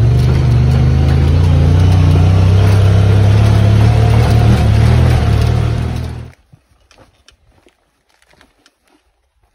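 Off-road vehicle's engine running loudly and steadily while it drives up a rough, rocky dirt track. About six seconds in it cuts off abruptly, leaving faint scattered footsteps on rocky ground.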